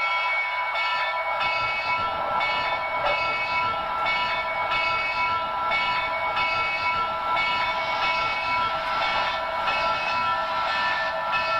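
Sound decoder of an HO-scale Broadway Limited Paragon4 Texas & Pacific 2-10-4 steam locomotive model playing steam-engine running sounds through its speaker: a steady even chuff, about one beat every 0.8 s, under a steady high hum.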